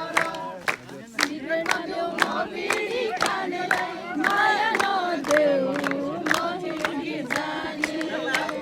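A group of people singing a Nepali folk song together, over a steady beat of sharp strikes at about three a second.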